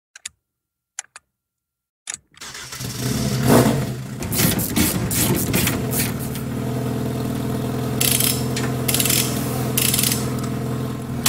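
A few clicks, then the 650 bhp four-wheel-drive Ford Fiesta rally car's engine starts about two seconds in. It is blipped several times and settles into a steady idle.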